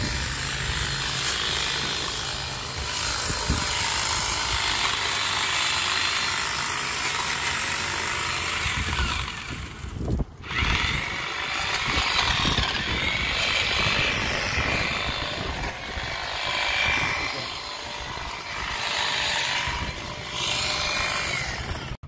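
Rustling and scraping of shrub branches being worked and cut by hand with a small blade, a steady scratchy noise with a brief break about halfway through.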